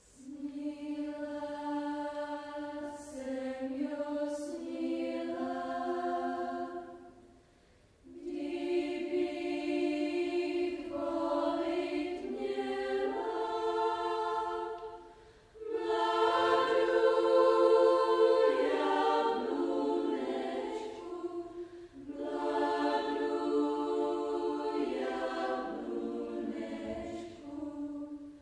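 A school choir of mostly girls' voices singing in several parts, in four phrases with short breaks between them.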